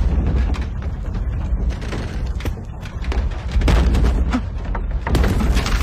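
Film soundtrack: a deep, continuous rumble under a dense scatter of knocks and thuds.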